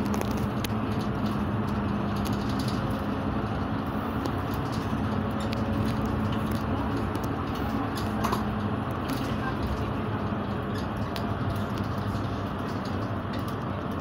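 Bus cabin at road speed: steady engine drone and tyre noise with a low hum, and occasional light rattles.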